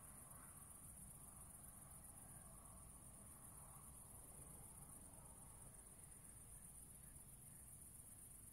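Near silence, with faint, steady, high-pitched chirring of crickets.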